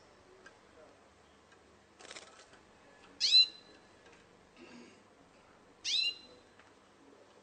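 Canary in a singing contest giving a brief buzzy rattle, then two loud, short, high whistled notes about two and a half seconds apart, each sliding quickly downward.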